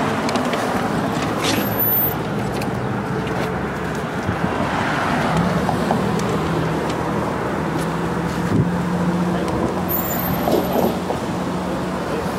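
Street traffic: cars driving past, with a steady low engine hum through the middle.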